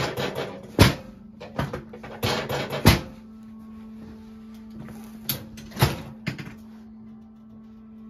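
Sharp clunks and cracks of a chiropractic adjustment on a treatment table: two clear knocks in the first three seconds, the loudest just before three seconds in, then three more quick ones between about five and six and a half seconds in.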